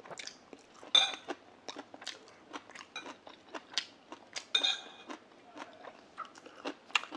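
A person chewing a mouthful of grilled eel and rice close to a clip-on microphone: wet mouth clicks and smacks several times a second, with two louder smacks about a second in and about four and a half seconds in.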